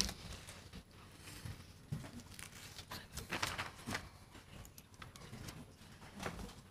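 Quiet room tone with faint paper rustling and a handful of scattered small clicks and knocks.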